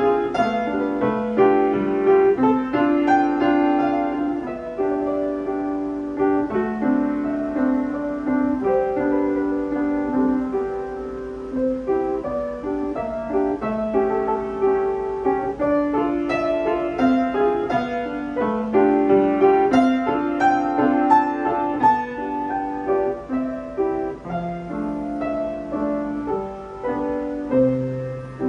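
Upright acoustic piano played solo: a continuous piece of many changing notes, melody over accompaniment, with a low bass note sounding near the end.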